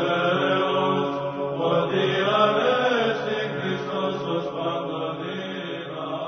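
Orthodox church chant: male voices singing a slow melody over a steady held drone, beginning to fade out near the end.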